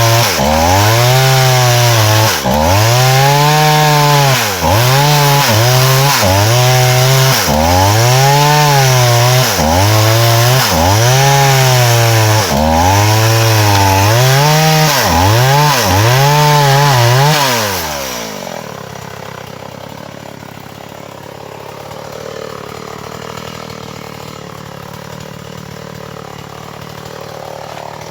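Small two-stroke chainsaw cutting wood, its engine revving up and dropping back over and over in a steady rhythm about every two seconds. About eighteen seconds in, the engine winds down and stops.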